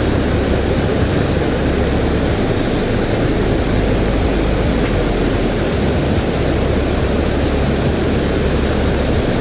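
Steady rushing of river rapids, with low wind rumble on the microphone coming and going.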